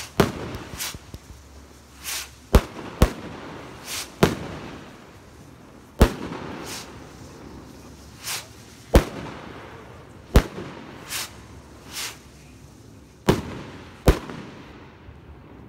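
Funke silver firework rockets bursting overhead: around ten sharp bangs at irregular intervals, each trailing off in an echo, with softer hissing whooshes between them.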